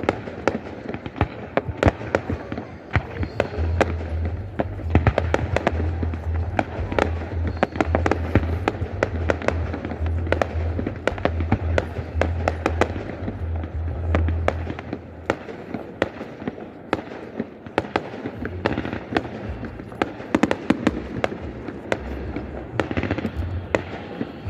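Fireworks display going off in a rapid, continuous stream of bangs and crackles, with music playing underneath.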